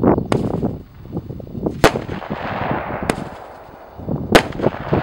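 A rushing noise dying away within the first second, then a series of sharp bangs with echoing tails: four clear ones a little over a second apart, the last the loudest.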